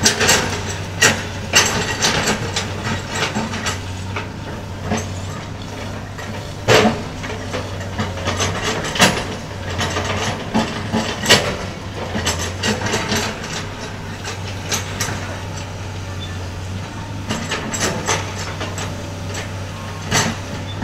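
Sany SY215C excavator's diesel engine running steadily with a low hum, under irregular knocks, clanks and scrapes as the bucket smooths mud for leveling.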